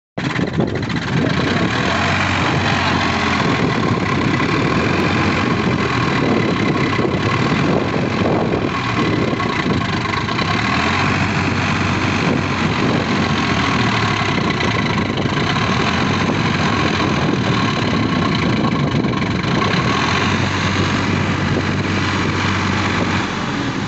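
Sonalika DI 42 tractor's diesel engine running steadily.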